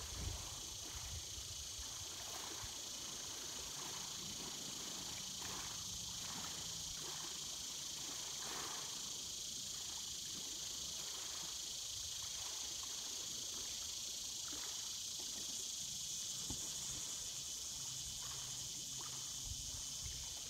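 Steady, high-pitched chorus of insects at dusk, unbroken throughout, with a faint low hum in places underneath.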